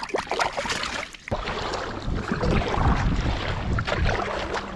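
Wind buffeting the microphone over water lapping around a small inflatable pack raft, with a few sharp clicks and knocks in the first second or so before the wind rumble grows steady and loud.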